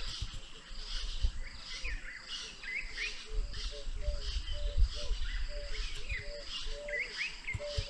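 Wild birds calling: scattered short rising chirps and a steady series of short, low hooting notes, with a low rumble of wind on the microphone.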